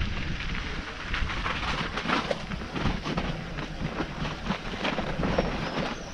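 Wind rushing over an action camera's microphone, with irregular clattering knocks of a bike riding over rough ground.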